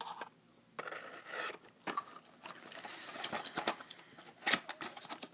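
An X-Acto hobby knife slitting the seal of a cardboard model-kit box: irregular scraping and rubbing strokes of blade on cardboard, with a sharp snap near the end.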